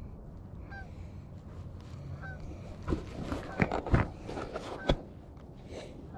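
Geese honking, short faint hooked calls repeating every second or two, over a low wind rumble. A few loud knocks about three to five seconds in.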